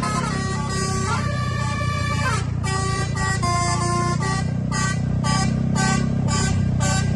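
Bus 'telolet' basuri air horn playing a melody of short toots and held notes in several pitches. Underneath it runs the steady low rumble of the bus's engine.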